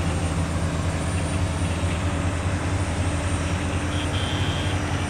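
Diesel engine of a Volvo heavy-haul truck running steadily under load as it pulls an over-dimensional trailer at crawling speed. A short high beep sounds about four seconds in.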